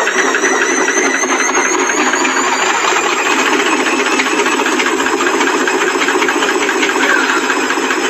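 Arctic front-loading washing machine running with a loud, steady, fast mechanical clatter: the noise of a faulty machine.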